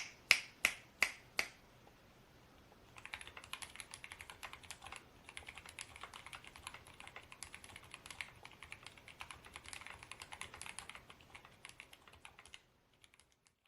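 Typing on a DOIO KB64G-01 mechanical keyboard fitted with pre-lubed Gateron North Pole linear switches: five separate, louder key clicks at the start, a short pause, then a long run of fast, even typing that is fairly quiet, ending with a few soft taps.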